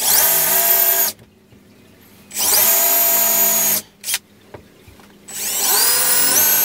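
Cordless drill boring pilot holes into a plywood face board, three runs of the motor a second or so each, whining up to speed at each start with short pauses between. Near the end the pitch steps up as the trigger is squeezed harder.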